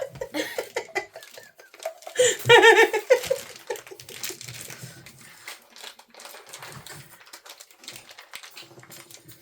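Packaging being handled and unwrapped: a run of small crinkles, clicks and taps throughout, with a brief voiced sound, like a short giggle or exclamation, about two and a half seconds in.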